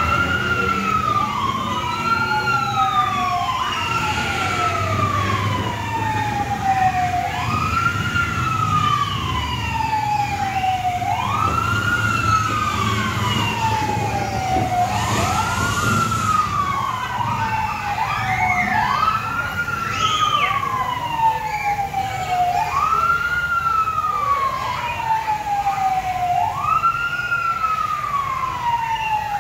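Fire truck siren wailing: a tone that sweeps quickly up and then sinks slowly, repeating about every four seconds, over a low steady rumble.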